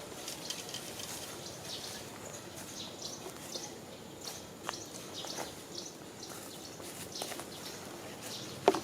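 Outdoor ambience with a steady hiss, many short high chirps and a few scattered clicks, the sharpest click just before the end.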